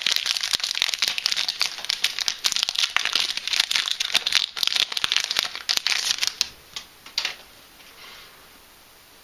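Foil wrapper of a Yu-Gi-Oh booster pack crinkling as it is torn open and handled, a dense run of crackles that stops about six and a half seconds in, with a last crinkle about a second later.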